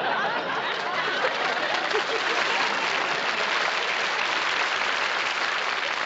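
Studio audience applauding and laughing.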